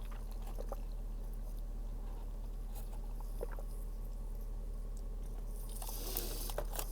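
A person chewing food close to the microphone: scattered small mouth clicks, more frequent near the end, over a low steady hum.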